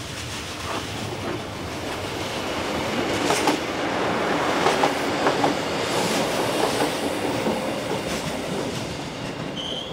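Two-car diesel multiple unit passing close by, its wheels clattering over rail joints and points, growing louder to a peak in the middle and then fading. A short high squeal near the end.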